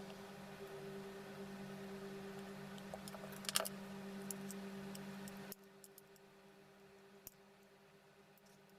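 Light clicks and taps of small objects being handled, a short cluster of them about three and a half seconds in, over a steady low electrical hum that drops away suddenly about five and a half seconds in.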